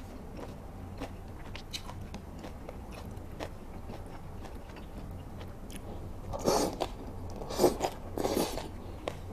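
Close-miked mouth sounds of eating saucy shredded pork with chopsticks: soft wet chewing clicks, then, about six seconds in, three louder slurps as strips of the meat are sucked in.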